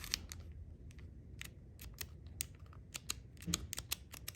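Sharp, irregular clicks and snaps from a ToughBuilt Reload utility knife's blade-release mechanism being pressed and handled. Its button is slow to spring back.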